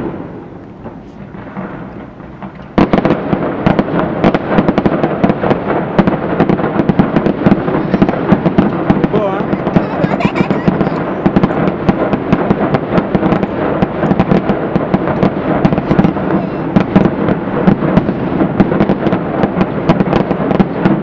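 Aerial fireworks display: a few scattered bangs, then about three seconds in a dense barrage of rapid bangs and crackling begins and keeps going.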